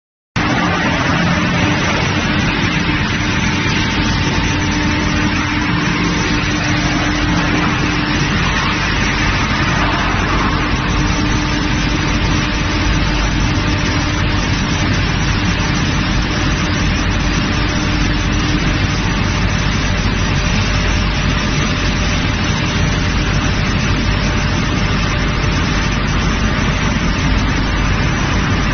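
Palm wood chipping and hammer-mill crushing machinery running steadily: a loud, constant mechanical noise with a steady hum underneath that drops away about two-thirds of the way through.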